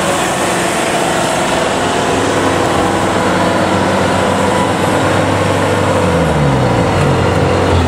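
Kubota crawler combine harvesters' diesel engines and drives running loud at close range, a dense steady mechanical noise. About six seconds in, a pitch slides down.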